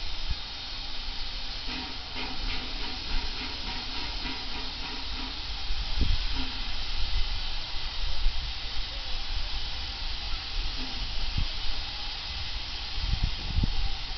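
Ol49 steam locomotive letting off steam: a steady loud hiss, with a faint low hum under it early on and low thumps about six seconds in and again near the end.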